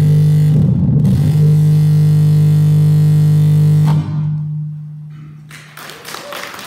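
Loud electronic noise drone from synthesizer and effects-pedal rigs: a steady low hum with stacked overtones and a grainy crackling surge near the start, cut off suddenly about four seconds in and leaving a fading ring as the set ends. Applause begins near the end.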